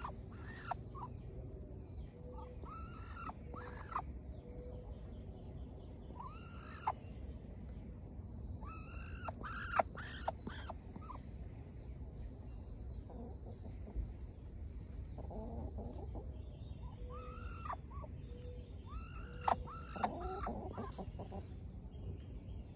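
Muscovy duck giving short, soft chirping calls in scattered groups, with a quick run of them about ten seconds in and another near twenty seconds.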